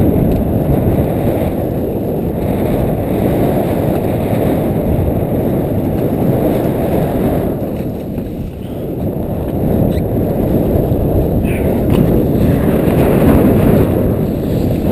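Wind buffeting an action camera's microphone: a steady low rumble that eases briefly about halfway through, with a few faint knocks near the end.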